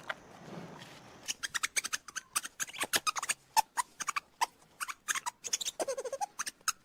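A small animal making a rapid, irregular run of short clicks and brief squeaks, several a second, with one slightly longer squeaky call near the end.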